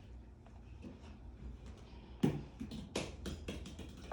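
Light knocks and clicks of small objects being handled and set down, with a sharper knock about two seconds in and another a second later.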